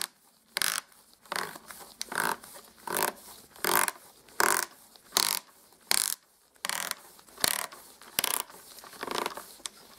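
Keyless chuck of a cordless drill being twisted tight by hand, clicking in short repeated strokes a little more than one a second, as its jaws clamp onto the stub of a broken screw to wind it out.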